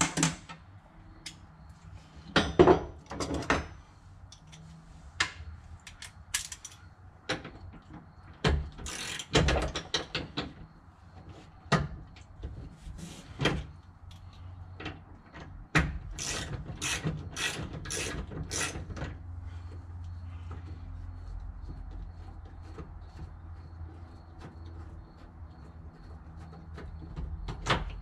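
Hand ratchet with a 17 mm socket loosening a seat belt anchor bolt: the pawl clicks in short runs, with a quicker run of about a dozen clicks late in the middle, among clinks of tool and bolt on metal.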